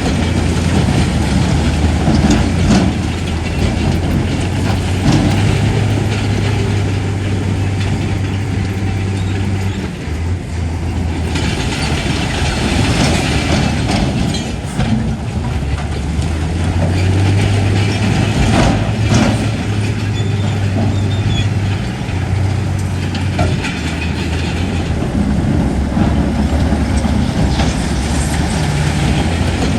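Heavy diesel engine of a crawler bulldozer working, its load swelling and easing several times, with continuous mechanical clatter and a few knocks over the top.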